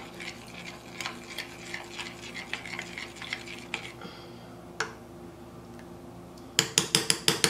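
A metal spoon stirring thickened goat milk liquid soap in a glass Pyrex measuring cup, with soft scrapes and light clicks against the glass. Near the end comes a quick run of sharp clinks of the spoon on the glass.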